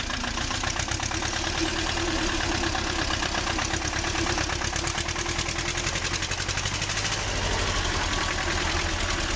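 Small wheeled tractor's engine running with a rapid, even chugging beat as the tractor works through a muddy stream.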